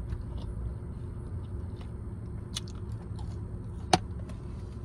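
Steady low rumble inside a car cabin, with scattered faint clicks and one sharp click about four seconds in.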